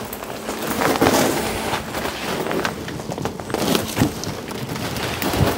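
Footsteps and rustling through dense, overgrown garden vegetation, with irregular crackling and snapping of dry twigs and leaves underfoot.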